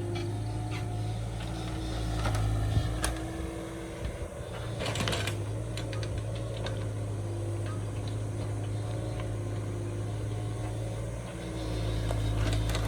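Kubota excavator's diesel engine running steadily, with scattered mechanical clicks and knocks and a short rattling clatter about five seconds in.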